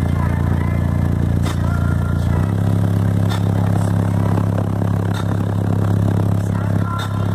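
Subwoofers playing a loud, deep, sustained bass note that steps up slightly in pitch about two and a half seconds in, with a faint tick about every two seconds.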